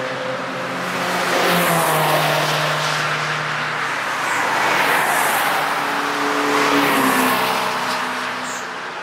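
Cars passing one after another on a race track, their engines running hard. The sound swells and fades with each pass, and one engine's pitch falls as it goes by about seven seconds in.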